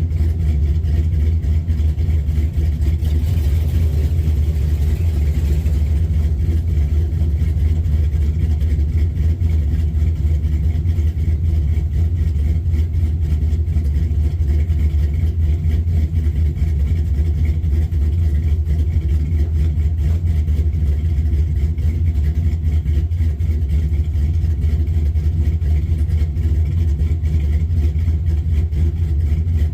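Fuel-injected LS V8 engine idling steadily with a deep, even exhaust note.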